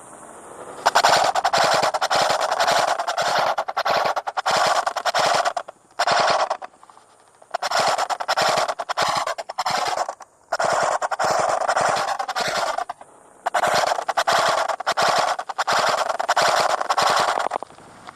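Airsoft rifle firing full-auto in several long bursts of rapid shots, each lasting about two to five seconds, with short pauses between them.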